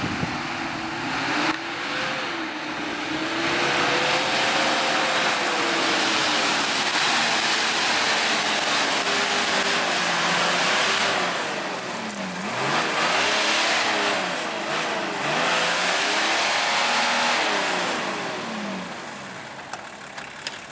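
Nissan Patrol Y60's diesel engine revving hard in two long surges, the pitch climbing and sagging, while the rear-wheel-drive-only truck churns through deep mud.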